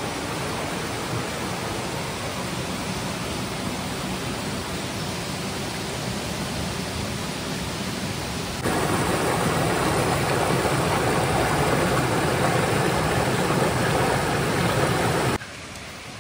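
Shallow stream water running over rocks, a steady rushing. It grows louder about halfway through and drops off sharply near the end.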